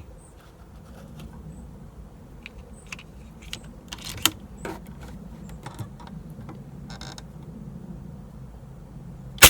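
Scattered mechanical clicks and creaks from an air rifle being handled, over a low steady hum. Right at the end comes a sharp shot and a metal target ringing.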